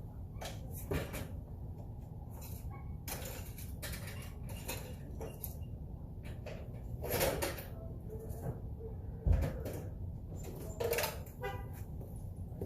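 Scattered metallic clinks and knocks of hand tools being handled and rummaged through, with a heavier low thump about nine seconds in.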